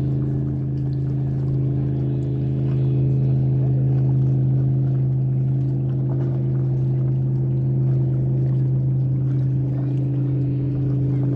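An engine running steadily, a loud, even hum that holds one low pitch throughout.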